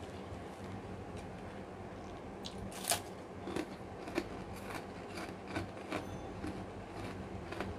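A crisp kerupuk cracker being bitten and chewed: one sharp crunch just before three seconds in, then a run of smaller crunches, over a steady low hum.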